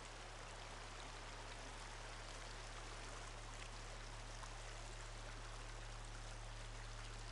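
Steady, even rushing noise, much like running water, with a low steady hum beneath it; nothing in it starts or stops.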